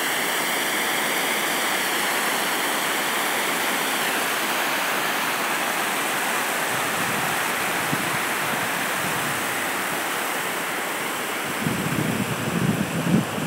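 Water pouring over a low dam spillway, a steady rushing sound. Low buffeting from wind on the phone's microphone comes in near the end.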